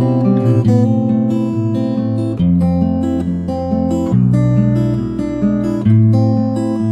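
Background music: acoustic guitar strumming chords that change every second or two.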